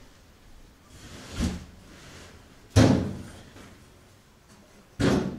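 Three heavy bangs echoing in a large metal-walled shed, the first swelling up more gradually, the second, a little under three seconds in, the loudest and sharpest, the third near the end.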